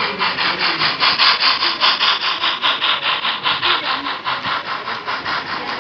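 Sound-equipped model steam locomotive chuffing steadily, about five hissy chuffs a second, loudest a second or two in.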